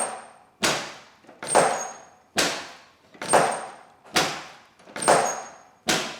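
Sharp knocks repeating evenly, a little under once a second, seven times; each dies away over about half a second, some with a faint high ring.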